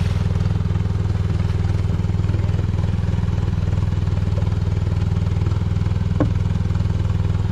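A boat's engine running steadily: a deep, even, pulsing drone.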